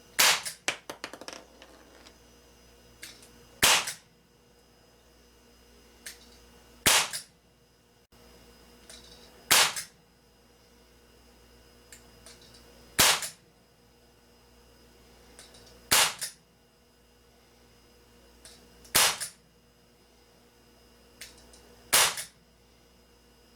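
Crosman Vigilante CO2 pellet pistol fired eight times, one sharp crack about every three seconds, with a faint click a moment before most shots. The shots belong to a chronograph string fired once the gun has broken in, now shooting around 380 to 440 feet per second.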